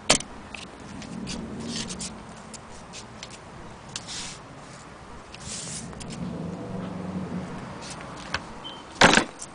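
Handling noises: scattered light rubbing, scraping and clicking, with a sharp knock at the very start and a louder double knock about nine seconds in.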